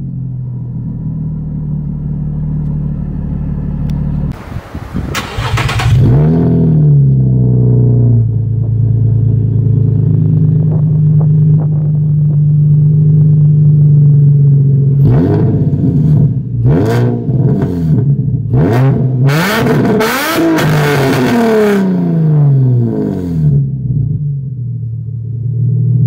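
Nissan 350Z's V6 engine, heard at its dual exhaust, idling and then revved once about five seconds in before dropping back. It runs steadily for several seconds, then takes a series of quick throttle blips that rise and fall, and settles back to idle near the end.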